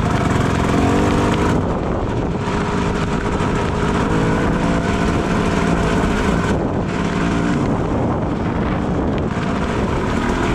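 Two-stroke KTM 250 EXC dirt bike engine running under changing throttle, its pitch rising and falling, over a steady hiss of wind and rain.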